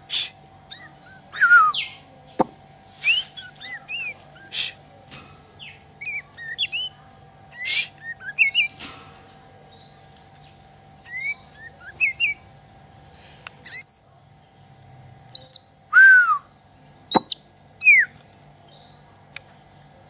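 Bornean white-rumped shama (murai batu) singing in bursts of varied whistled notes, rising and falling glides and sharp clicks, with a few short pauses between phrases.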